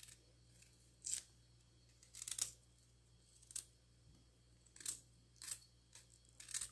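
Fresh ginger and carrot being cut up by hand: about six faint, short scraping strokes, roughly a second apart.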